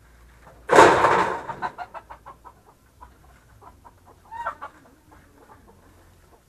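Chicken giving a loud squawk followed by a run of clucks that trail off, with another short cluck a few seconds later.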